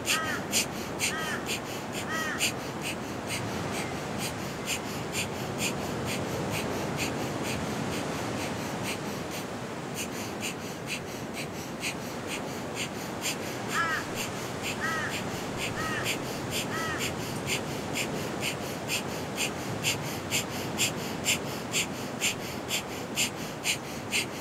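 Breath of fire: rapid, forceful nasal exhalations pumped from the navel, about three a second, kept up in a steady rhythm. A bird calls in short series of three or four calls near the start and again about 14 seconds in.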